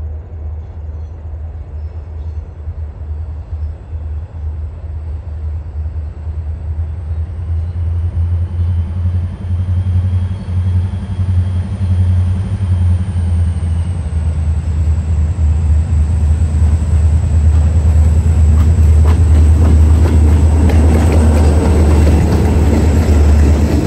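A freight train's lead diesel locomotives, EMD GP40-series units, approaching and then passing close: a low engine rumble grows steadily louder. Near the end it is joined by wheel clatter on the rails as the locomotives go by.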